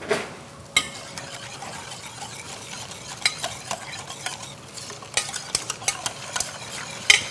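A utensil stirring a milk, sugar and cornstarch mixture in a stainless-steel saucepan, with many small clicks and scrapes against the pot.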